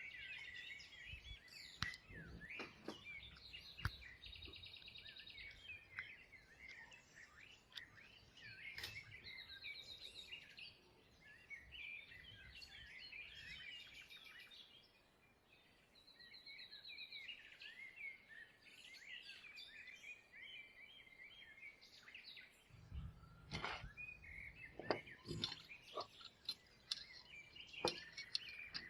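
Small birds chirping and trilling, with scattered light clicks and taps, several of them close together near the end.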